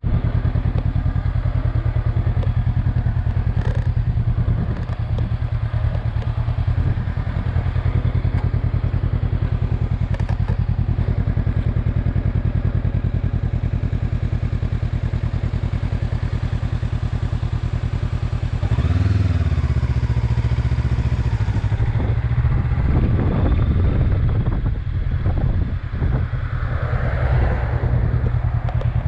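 Motorcycle engine idling steadily with an even, rapid pulse, briefly swelling about two-thirds of the way through.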